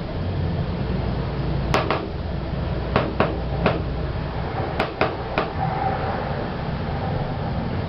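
Passenger lift car travelling upward at speed: a steady low rumble from the moving car, with a run of sharp clicks about two to five and a half seconds in.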